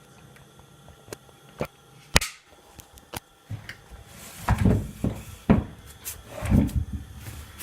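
Handling noises: a few sharp clicks and knocks, then about four seconds in a run of heavier clunks and rustling.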